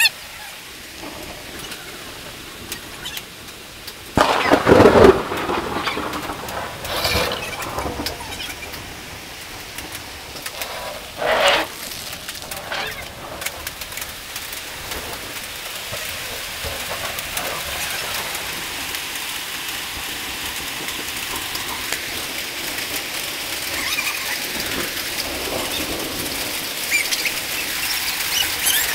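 Hail and rain falling in a storm: a steady hiss that slowly grows denser and louder, broken by a few louder bursts about four, seven and eleven seconds in.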